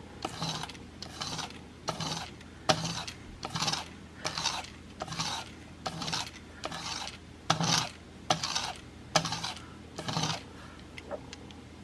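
Steel single-bevel broadhead drawn in light pulling strokes over a cardboard sheet charged with buffing compound, the edge being buffed: a dry rubbing scrape repeated about every three-quarters of a second, with a light click on a few strokes.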